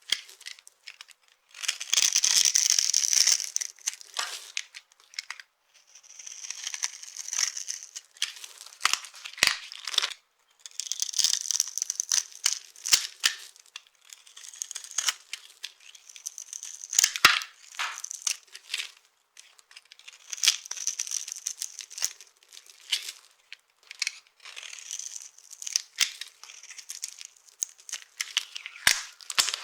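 Dry soap being crushed and crumbled, a crisp crackling crunch in repeated bursts of a second or two, with sharp snaps of soap breaking in between.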